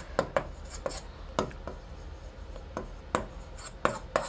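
A pen tapping and scraping on a whiteboard screen while writing, a string of irregular short clicks about a dozen strong.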